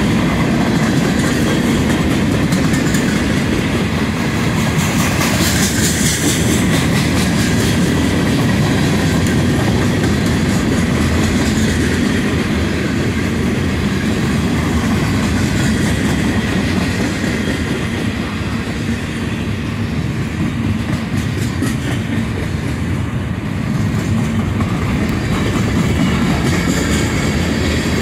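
Norfolk Southern freight cars of a mixed freight train rolling past at speed: a steady, loud rumble of steel wheels on the rails.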